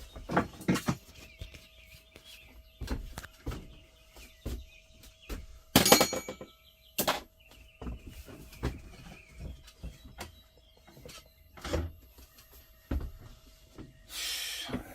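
Irregular knocks and clunks of hands-on work on a sleeper truck's fold-down upper bunk, the loudest pair about 6 and 7 seconds in.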